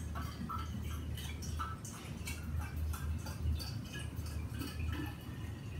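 Water poured from a plastic bottle into the narrow neck of a stainless-steel vacuum-insulated drinking bottle, trickling and splashing with many small irregular clicks.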